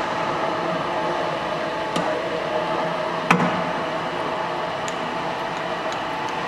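Woerner B 13 S bench drill running steadily, with a faint even hum. A small click about two seconds in and a sharper knock just after three seconds.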